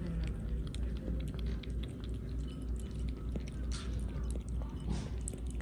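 A cat with its head in its bowl, making quick, irregular wet clicks and smacks with its mouth, over a steady low hum.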